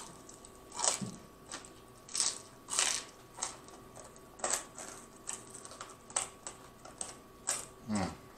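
Crunching and chewing of crispy fried chicken close to the microphone: irregular crisp crunches and wet mouth smacks, some from licking fingers, with a brief low hum of the voice near the end.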